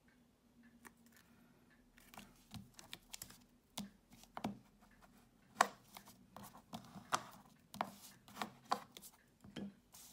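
Paper crafting by hand: a freshly glued card-stock panel pressed down and burnished with a bone folder, giving irregular papery taps, rubs and rustles, the loudest a little past halfway.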